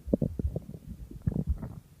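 Stomach growling: a quick, irregular run of low gurgles and pops that thins out near the end.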